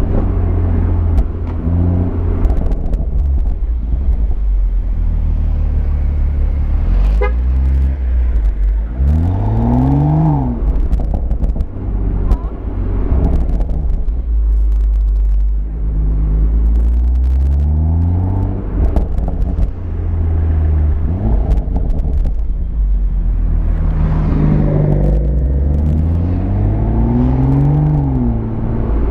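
BMW M140i's turbocharged 3.0-litre straight-six exhaust under way. The revs climb in pitch and fall away three times, about a third of the way in, around the middle, and near the end, over a steady deep rumble.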